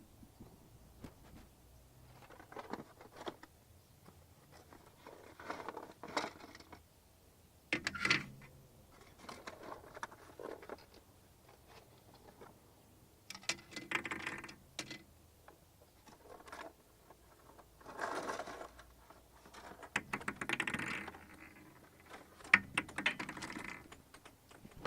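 Unpacking and handling a Hot Shots Games 3-Ball Shootout plastic toy and its cardboard box: scattered short bursts of rustling, scraping and light plastic clicks every few seconds, with quiet gaps between.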